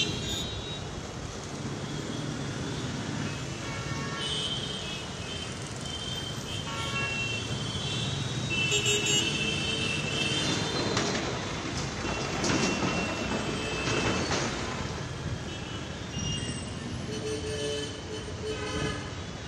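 Busy street traffic with a steady hum of vehicles and frequent short horn toots from cars and other vehicles.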